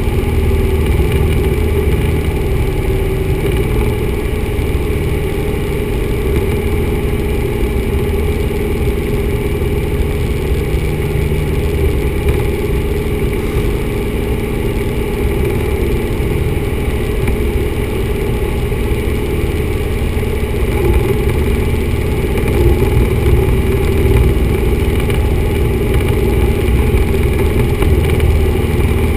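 1974 Cessna 172's four-cylinder Lycoming engine and propeller droning steadily in level flight, heard inside the cockpit.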